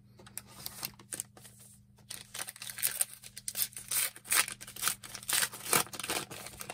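Topps Turbo Attax F1 trading cards being handled and sorted: a run of quick, irregular rustles, flicks and crinkles of card stock. They get busier and louder from about two seconds in.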